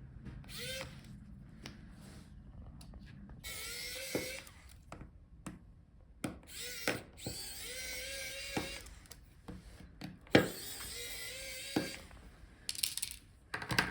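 Small electric screwdriver taking out the laptop touchpad's screws: several short whirs, each a second or two long, with small clicks between them.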